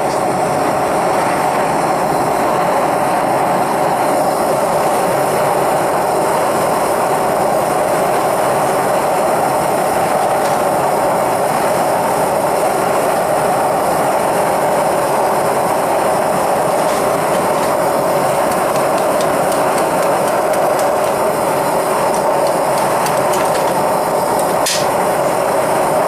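Propane burner firing a small 5-inch melting furnace at full heat, running with a steady, even rushing noise. A single short tap sounds near the end.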